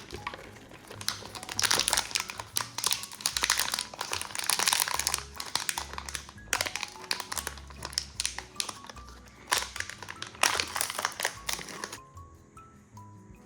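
Wrapping crinkling and rustling in irregular bursts as a surprise ball is unwrapped by hand, stopping near the end, over light background music.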